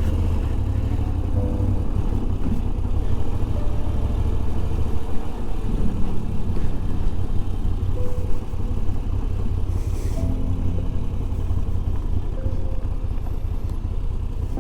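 Moto Guzzi V85 motorcycle's air-cooled V-twin engine running, heard as a steady low rumble.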